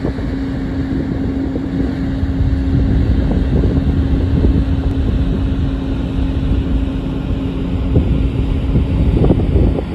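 Wind buffeting the microphone on the deck of a moving ferry, over the ship's steady engine drone. A steady hum runs under it and fades out near the end.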